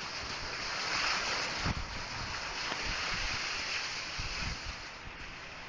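Rain falling steadily, a dense hiss that swells about a second in, with wind buffeting the phone's microphone in low thumps.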